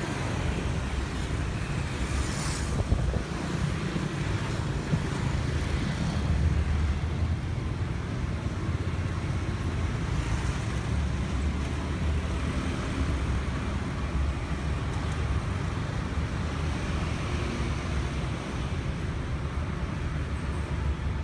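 Steady street traffic noise from passing motorbikes, a continuous low rumble.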